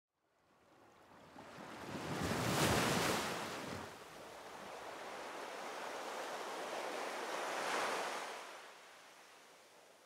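Rushing whoosh sound effect of an animated intro, swelling about two and a half seconds in and again near eight seconds, then fading away.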